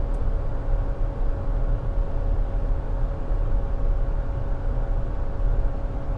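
Steady drone of running rooftop HVAC equipment: a constant mechanical hum with a low rumble underneath.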